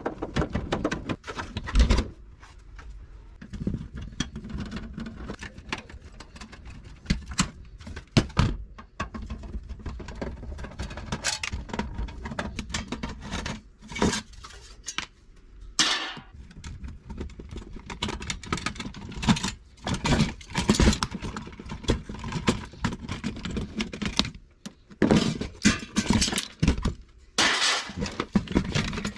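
Parts of an old Toshiba CRT television being pulled apart and handled on a plastic tray: irregular knocks, clatter and rattling of the plastic housing, sheet-metal shield and circuit boards, with several louder thumps.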